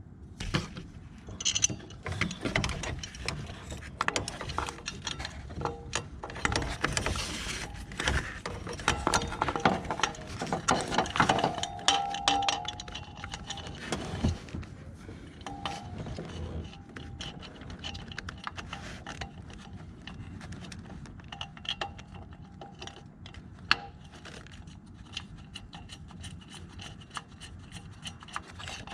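Scattered metallic clicks, clinks and rubbing as a new serpentine belt tensioner is fed down into place and its center bolt is threaded in by hand. Busiest in the first half, with a brief ringing of metal a little before the middle.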